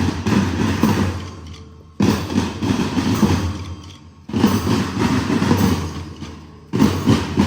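School marching band playing. The music comes in loud stretches that die away and restart sharply every two to three seconds.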